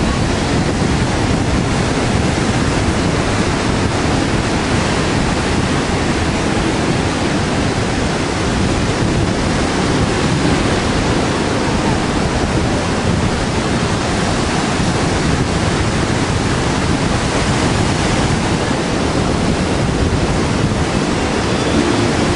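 Steady rush of ocean surf and wind, an unbroken wash of noise.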